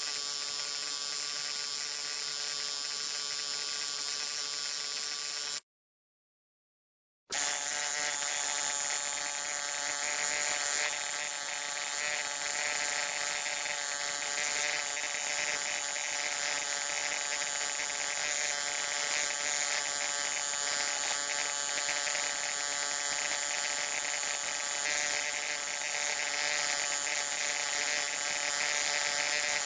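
Low-voltage electric arc buzzing steadily, with a harsh, crackling edge. About five and a half seconds in it cuts off for under two seconds of silence, then starts again slightly louder.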